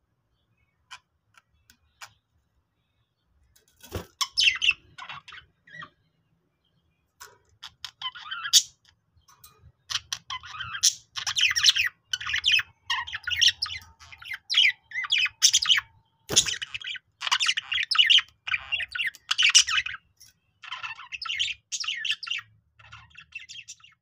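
Budgerigars chirping and warbling, starting after a few faint clicks and becoming near-continuous chatter from about ten seconds in, with a sharp click about four seconds in and another a little past sixteen seconds.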